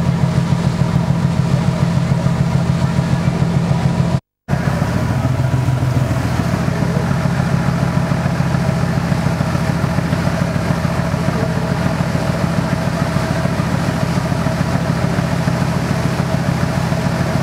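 Fishing trawler's diesel engine running hard at speed, a loud, steady drone with a fast, even throb. The sound cuts out completely for a moment about four seconds in.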